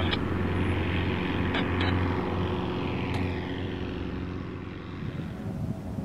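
Cessna L-19 Bird Dog's six-cylinder Continental O-470 engine and propeller running at low taxi power, a steady low drone that eases off somewhat near the end.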